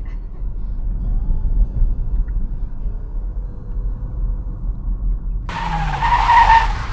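Car driving, its low road and engine rumble heard from inside the cabin as it turns around. About five and a half seconds in, a loud hissing burst with a squeal lasts under two seconds.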